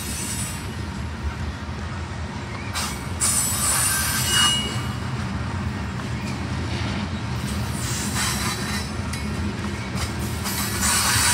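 Loaded covered hopper cars of a grain train rolling past with a steady low rumble of wheels on rail. High-pitched wheel squeals rise over the rumble about three seconds in, again around eight seconds, and near the end.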